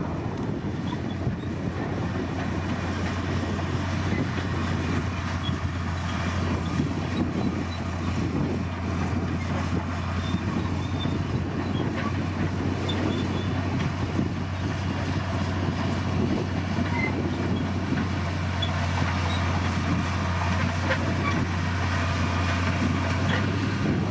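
D60P bulldozer's diesel engine running steadily under load with a constant low drone, along with a noisy mechanical rumble and scattered faint ticks.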